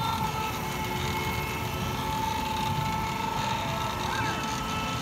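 Bumper boat motors running steadily, with a constant high whine over a steady mechanical hum.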